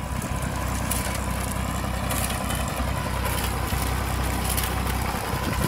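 1958 Fordson Dexter tractor engine running steadily as it pulls a 1941 McCormick reaper and binder through standing oats.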